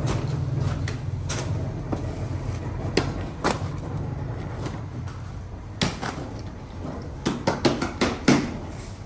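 Bakery work sounds: a steady low hum, strongest in the first half, under scattered sharp knocks and clatters, with a quick run of clacks about seven to eight seconds in.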